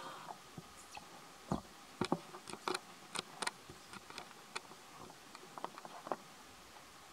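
Quiet forest ambience: a faint steady insect drone under many scattered short, sharp clicks and taps, the loudest about two to three and a half seconds in.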